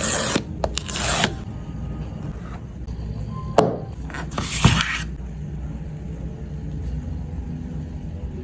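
Hands handling a phone case and its packaging during an unboxing: several short scrapes and rubs, with two sharp taps about halfway through.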